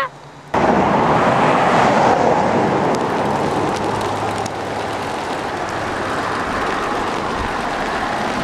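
Steady rushing noise of a bicycle being ridden through falling hail on a wet road, starting suddenly about half a second in.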